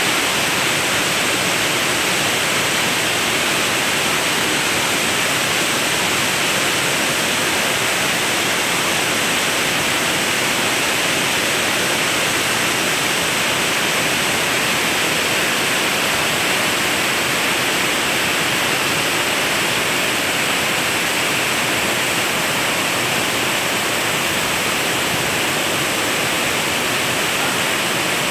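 Waterfall rushing steadily: an even, unbroken hiss of falling water and spray.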